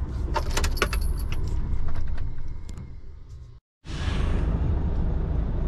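Clicks and rattles in a truck cab over the steady low rumble of the idling diesel engine, the rumble fading away a couple of seconds in. After a short break, the engine's low rumble is there again.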